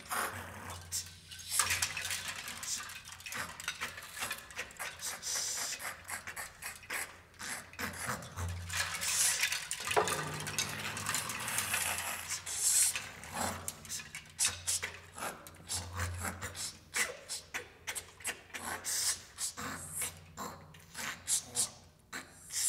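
Amplified scratching, crackling and buzzy rubbing noises from coins scraped across almglocken, mixed with paper being crumpled, over a low buzz that comes and goes.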